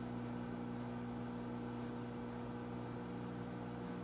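Over-the-range microwave oven running with a steady hum.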